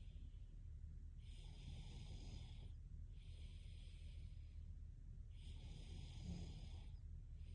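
Faint, slow, even breathing of a sleeping girl: soft hissing breaths of about a second and a half each, following one another with short pauses. Every other breath carries a slight snoring rumble.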